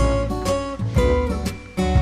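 Background music led by acoustic guitar, with a strong low note about once a second.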